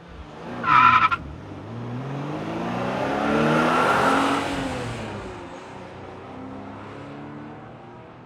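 Cammed 1999 Mustang GT's 4.6-litre V8 through shorty headers, an X-pipe and Magnaflow mufflers, rising in pitch and loudness over about three seconds, then falling back to a steady idle. A brief, loud, high-pitched squeal comes about a second in.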